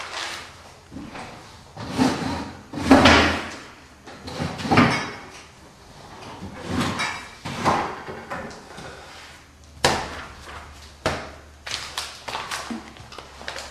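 Drawers and cupboard doors being pulled open and pushed shut in quick, irregular succession while someone rummages, with several sharp knocks in the second half.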